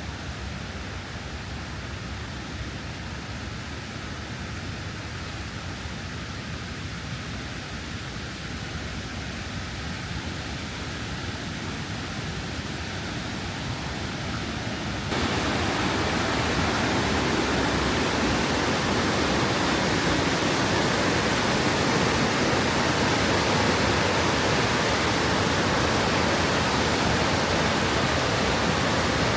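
Steady rushing of a waterfall mixed with rain, growing slowly louder, then jumping abruptly louder and fuller about halfway through.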